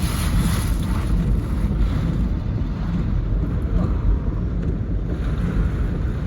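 Strong typhoon wind blowing steadily, with heavy rumbling wind buffeting on the microphone.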